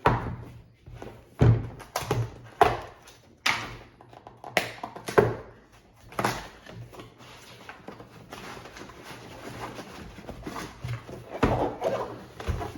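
Switch panel's packaging being opened and handled: a series of sharp knocks and thunks over the first six seconds or so, then a softer, continuous noise of packaging being handled with a few more knocks near the end.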